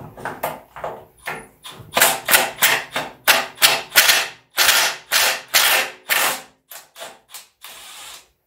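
Cordless power wrench backing out the drain plug of an NP231 transfer case, run in short trigger bursts at about three a second, loudest in the middle and lighter near the end.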